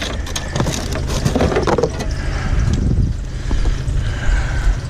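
Car engine running, with knocks and rattles in the first couple of seconds, then a squeaky fan belt giving short squeals near the end.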